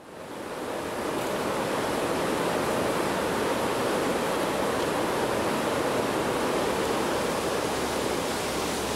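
Creek water rushing through a small concrete dam's outflow: a steady, full rush of whitewater that fades in over the first second.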